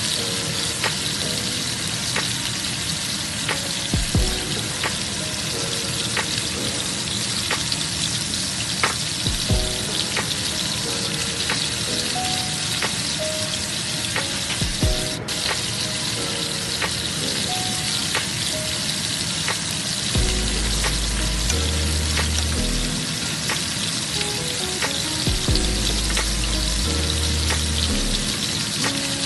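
Shrimp and hairy melon sizzling and bubbling in sauce in a frying pan, a steady hiss with scattered small pops, stirred with a spatula near the end. Background music with a bass line plays under it, its bass stronger in the last third.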